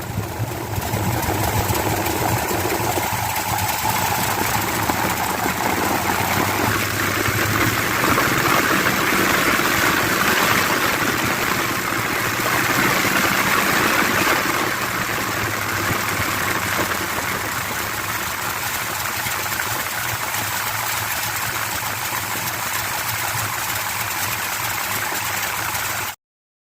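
1970 Chevelle's big-block V8 with a Holley 850 double-pumper carburetor idling steadily, a little louder in the middle stretch, then cutting off abruptly near the end. It is running with no power valves in the carburetor, lean on the primary side, and the owner believes it has hardly any vacuum.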